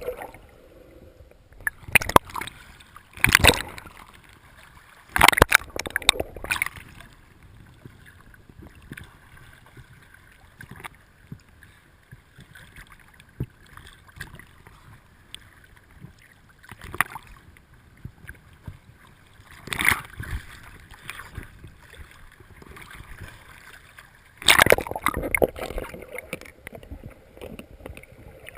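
Water splashing and sloshing around a small rowboat, in irregular loud bursts with quieter lapping between them.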